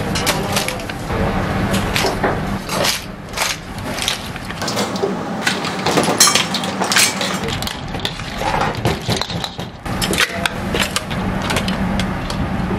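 Metal cooking utensils clattering and scraping against a wok and steel pots as boiled seafood and corn are tossed and ladled, many sharp knocks in irregular succession over a steady low kitchen hum.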